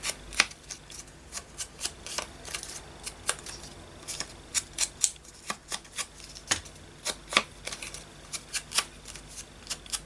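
The edge of a paper page being inked: an inking tool dabbed and tapped against the paper in a run of short, irregular taps, roughly two or three a second.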